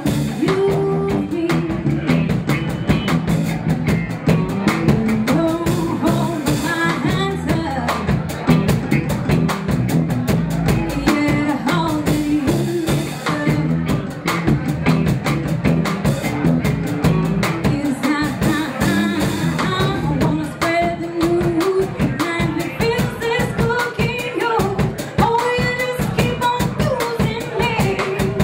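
A live band playing, with a woman singing lead over drum kit, keyboard, electric guitar and bass.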